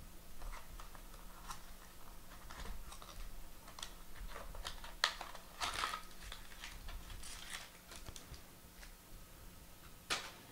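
Hands handling trading cards and their packaging: scattered light clicks, taps and short rustles. The loudest are a couple of brief scrapes about five to six seconds in and a sharp one near the end.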